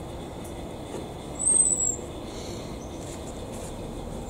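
Steady low background rumble, with a short, high, thin whistle about a second and a half in and again at the very end.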